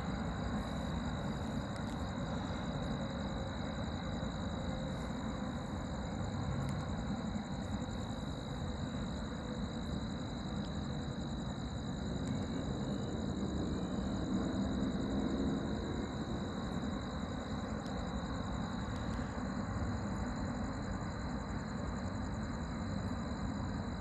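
Outdoor night ambience: a steady low rumble of distant road traffic that swells slightly about halfway through, with a thin, steady high-pitched tone over it.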